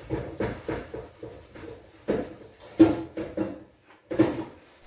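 Cloth rustling and rubbing close to the microphone in irregular scuffs, with a sharper knock about three seconds in and a brief lull shortly before the end.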